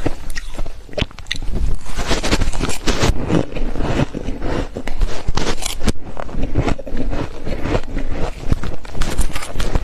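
Freezer frost crunching, with dense, irregular crunches close to the microphone.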